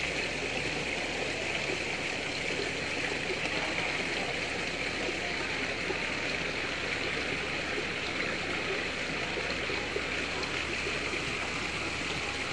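Small rock waterfall pouring steadily into a koi pond, a constant splashing hiss of falling water.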